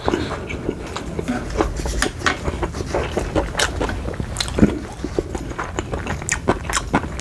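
A person chewing a mouthful of instant cup noodles close to the microphone: a run of irregular wet mouth clicks and smacks, with one louder click about four and a half seconds in.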